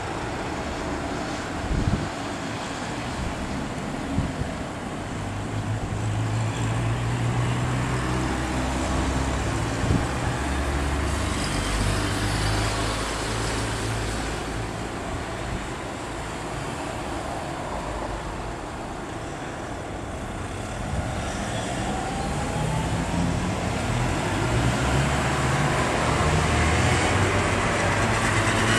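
Road traffic: cars and trucks driving past, with a steady low engine drone and a few light knocks. The sound grows louder near the end.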